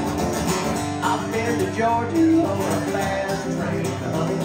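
Acoustic guitar strummed in a steady country rhythm, with a melody line rising and falling over it near the middle.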